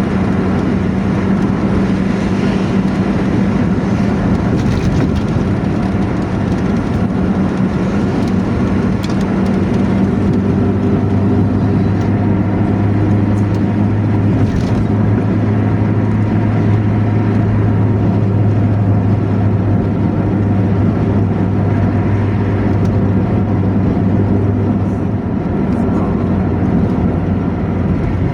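Diesel engine of a Luragung Burdah coach running steadily through its 'ngorok' exhaust, giving a loud, deep, snoring drone. From about ten seconds in, a lower note grows stronger, then eases back near the end.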